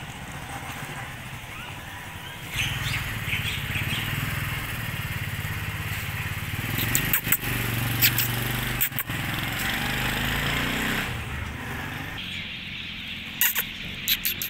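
A motor vehicle engine running nearby for several seconds, with a steady low hum that starts abruptly a couple of seconds in and stops near the end. Several sharp clicks come in the middle and again near the end.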